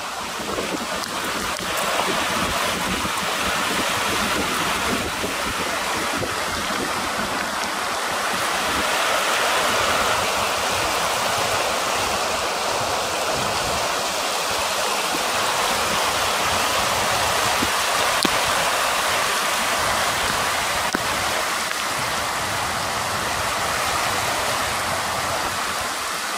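Swollen river in flood, its fast muddy water rushing steadily.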